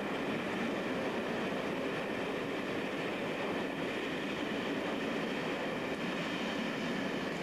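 Passenger coaches of a locomotive-hauled train rolling past close by, a steady, even rumble of wheels on the rails.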